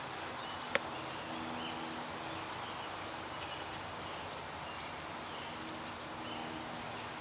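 Steady outdoor background hiss with faint, scattered bird chirps and a faint low hum that comes and goes. A single sharp click about a second in.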